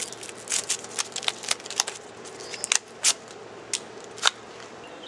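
Irregular crinkling and rustling, with sharp crackles a fraction of a second apart, as hands handle a pack of gum and clothing.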